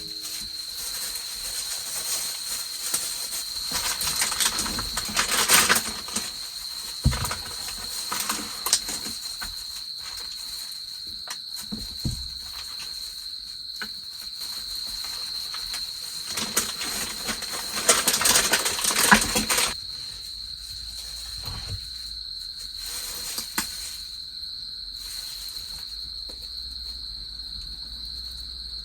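Autumn insects, crickets, trilling steadily at a high pitch. Scattered clicks and two stretches of close-up rustling and handling noise come a few seconds in and again past the middle.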